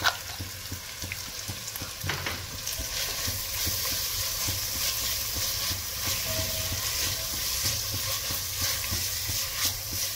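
Onion, capsicum, carrot and tender-coconut flesh sizzling in an enamelled pot while a silicone spatula stirs and scrapes through them. A sharp click comes at the very start, and the sizzle grows louder about two and a half seconds in.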